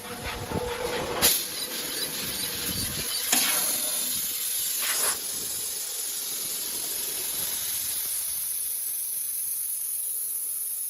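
CNC fiber laser tube-cutting machine at work: a steady high hiss of the cutting head and its gas, broken by three sharp pops in the first half.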